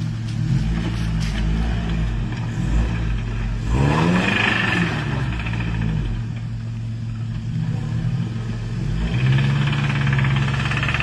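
Straight-axle Toyota crawler's engine running and revving as it works through mud holes, the revs rising sharply about four seconds in and falling back, then climbing again and holding near the end.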